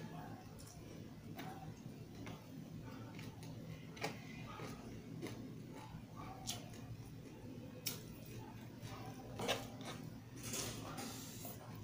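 Close-miked eating sounds of hand-eaten fried chicken and rice: chewing, lip smacks and fingers picking at the plate, heard as irregular small clicks and crackles over a steady low hum.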